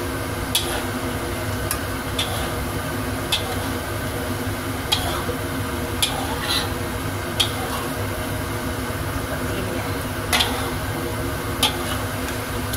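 Metal spatula stirring chicken and tofu in oyster sauce in a wok as the sauce is thickened with cornstarch slurry, with sharp clicks of the spatula against the wok about once a second over a steady hum and light sizzle.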